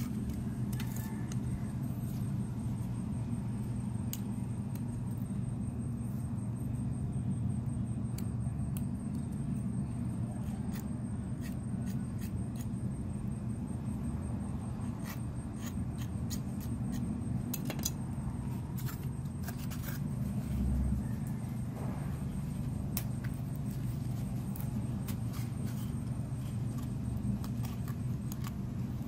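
A knife cutting and scraping a polystyrene foam tray, heard as scattered short clicks and scratches over a steady low hum.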